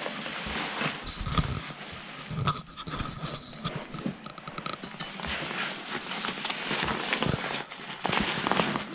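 Irregular rustling and scraping of backpack fabric as a curved carbon fiber frame rod is worked into its tight sleeve, with small clicks of the rod and buckles.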